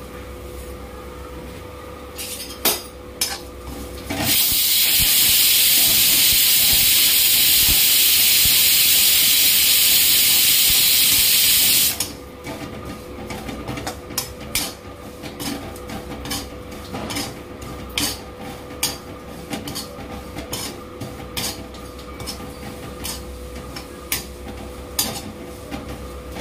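Pressure cooker letting off steam: a loud, even hiss that starts suddenly about four seconds in and stops abruptly some eight seconds later. Before and after it come clicks and scrapes of a steel utensil stirring in an iron kadhai.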